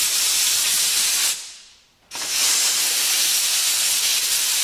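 Compressed-air blow gun blasting air into the end of a hydraulic cylinder with a loud, steady hiss, blowing out the brake cleaner it was just flushed with. The first blast trails off about a second and a half in, and a second starts abruptly about two seconds in.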